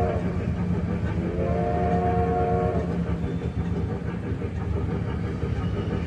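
Wattman trackless electric mall train's whistle sounding a chord of steady tones: the end of one blast right at the start, then another blast about a second and a half in, lasting about a second and a half, over the train's steady running hum.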